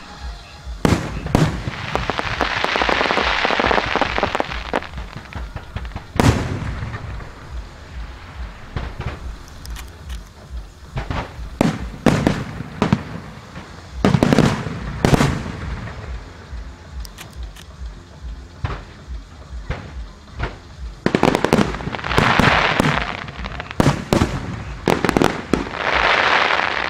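Aerial fireworks shells bursting overhead: sharp bangs come irregularly, a few close together. Three times a burst is followed by a dense crackling hiss lasting a second or more, right after the start, about three quarters of the way in, and near the end.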